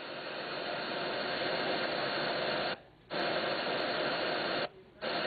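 Steady hiss of radio static that swells over the first couple of seconds. It cuts out briefly twice, about three seconds in and again just before the end.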